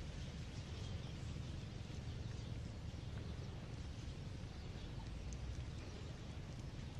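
Steady outdoor background noise: a low rumble with faint, scattered high ticks, and no clear call from the monkey.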